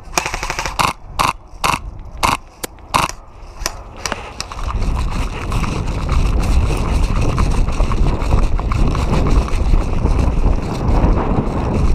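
Sharp crunching footsteps on rough ground, then from about four seconds a steady low rumble of wind on the microphone with continuous crunching and scraping over it, as of a player moving quickly across the ground.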